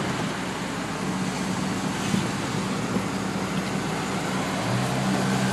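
1991 UD 1200 truck under way, heard from inside its cab: the four-cylinder engine drones steadily under a wash of tyre and road noise from wet pavement, the drone growing a little stronger near the end.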